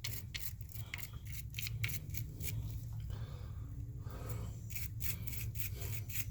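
A small wire brush scrubbing hair and grime off the tub's overflow bolts in quick scratchy strokes, about four a second, with a short pause partway through. A steady low hum runs underneath.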